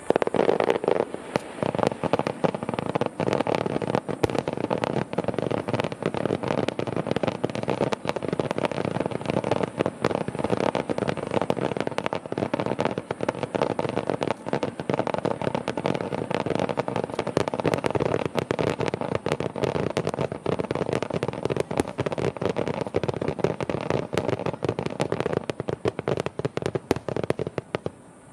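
Aerial fireworks in a rapid-fire barrage: shell bursts and crackling come in a dense, unbroken stream, starting abruptly and stopping near the end.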